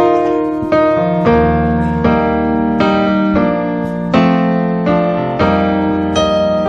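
Piano-style keyboard playing a slow introduction of sustained chords, a new chord struck about every half second to a second, leading into a congregational worship song.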